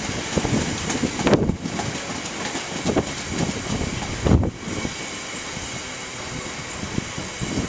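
Freight train of covered coal hopper wagons rolling past, a steady rumble of wheels on rail broken by a few irregular louder thumps, with wind on the microphone.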